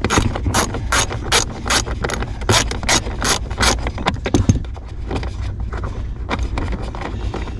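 Socket ratchet clicking in quick repeated strokes, about three a second, as it backs off the 10 mm nuts holding an accelerator pedal assembly to the floor. The nuts are barely more than hand-tight. The clicking stops about four and a half seconds in and the sound falls quieter.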